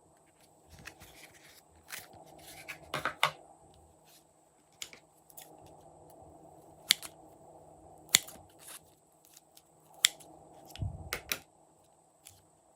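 Glossy slime being pressed and pulled apart by hand, giving irregular sharp sticky clicks and pops, some in quick clusters, every second or two.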